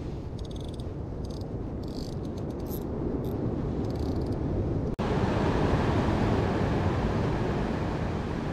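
Spinning reel clicking in several short, rapid runs as its drag is being set, over a steady wash of wind and sea. About five seconds in this gives way abruptly to louder wind on the microphone and surf on the rocks.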